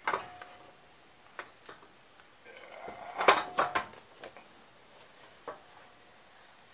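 Metal knocks and clanks as a small air-cooled engine block is handled and turned over on a steel press table. There is a sharp knock at the start, a few light taps, and a cluster of louder clanks about three seconds in.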